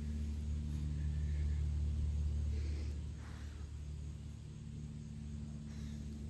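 Steady low mechanical hum, a little quieter after about three seconds, with a few faint high chirps over it.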